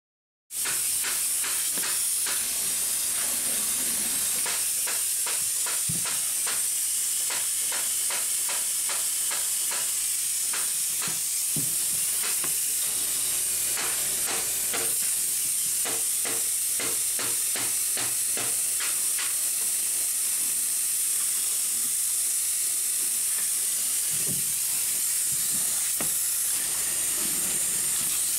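Insulation being blown through a hose into a netted wall cavity: a steady high hiss that starts suddenly about half a second in, with many small ticks through it.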